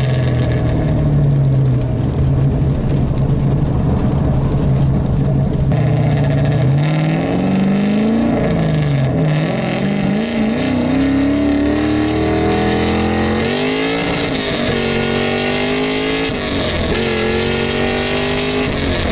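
Swapped 6.2-litre LS3 V8 in a Mazda Miata, heard from inside the cabin. It holds a steady cruise for about six seconds, then accelerates hard, the engine note climbing and dropping back at each of about three upshifts.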